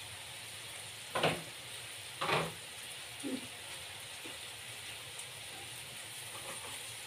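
Food sizzling in a frying pan on a gas stove, a steady even sizzle, with two short knocks about one and two seconds in and a couple of fainter taps after.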